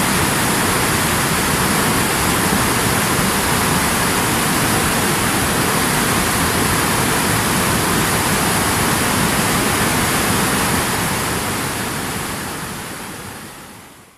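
Rushing river water, a steady wide whoosh of white water over rocks, fading out over the last three seconds.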